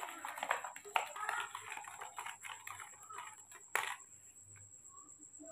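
Spoon stirring and scraping milk in a clear plastic cup: a rapid run of small clicks and scrapes, ending in one sharp click just before the four-second mark.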